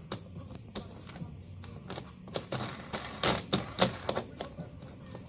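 A string of small clicks and clacks, densest and loudest about three to four seconds in, from the plastic parts of a glue-pull dent repair kit being handled and fitted together.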